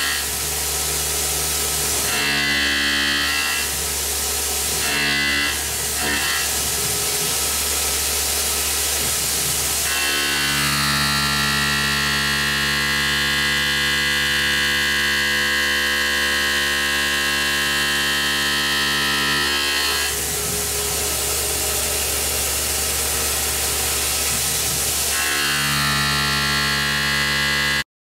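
Tormach CNC mill's end mill cutting a spiral pocket in a thin aluminium plate: a steady machining whine made of several held tones that shift every few seconds as the cut changes, over a constant hiss. It cuts off suddenly near the end.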